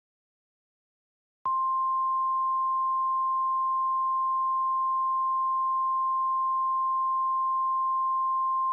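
Emergency alert attention tone: a single steady, pure high tone near 1 kHz. It starts abruptly about a second and a half in, holds unchanged for about seven seconds and stops sharply near the end.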